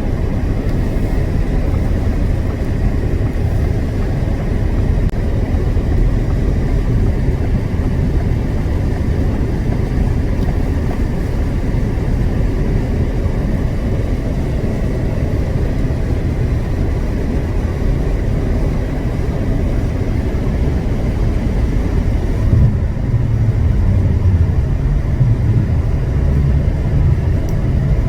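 Steady road and engine noise heard from inside a moving car, a dense low rumble with a thin hiss above it. About 23 seconds in, the low rumble grows louder and the hiss fades.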